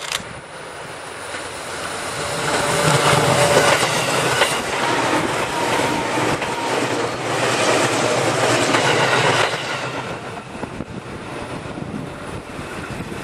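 A JR 211-series electric multiple unit passing close on a curve, its wheels rumbling and clattering over the rails. The sound builds, stays loud for several seconds with a few thin whining tones over the rumble, then dies away as the train moves off.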